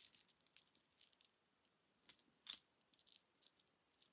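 Small beads and pieces of costume jewellery clicking and rattling as they are handled, with two louder clinks about two seconds in.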